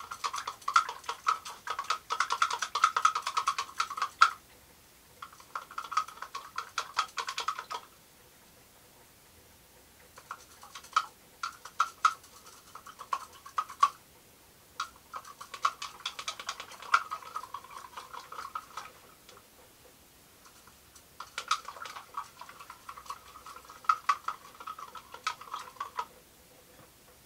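Glass stirring rod clicking rapidly against the sides of a beaker while stirring sodium hydroxide into water to dissolve it. The ticking comes in five spells of a few seconds each, with short pauses between them.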